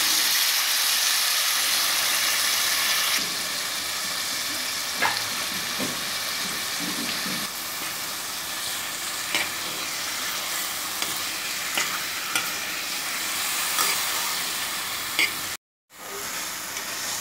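Marinated chicken pieces sizzling in a pan on a low flame, cooking in the juices they release with no water added. A few light clicks of a utensil against the pan sound through the steady sizzle, which cuts out briefly near the end.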